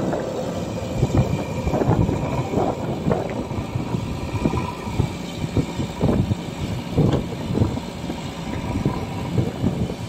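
JCB 3DX backhoe loader's diesel engine running under load while the backhoe works, with irregular knocks and thuds as the bucket swings and dumps soil into a tractor trolley.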